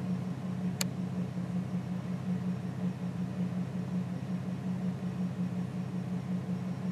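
An engine running steadily with an even low hum, and a single sharp click about a second in.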